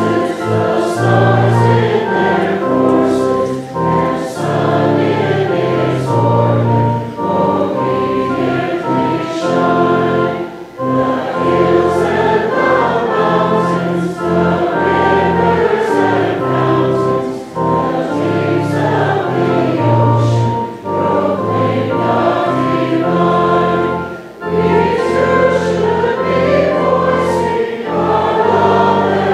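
A hymn sung by many voices together with instrumental accompaniment, in phrases separated by short breaks.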